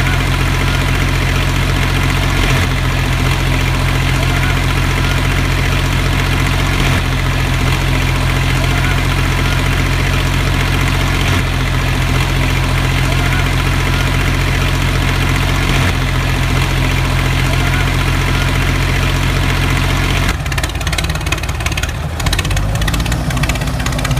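Recorded tractor engine-idle sound, a steady, evenly repeating loop that restarts about every four and a half seconds, played along with the toy tractor. Near the end it turns rougher and choppier.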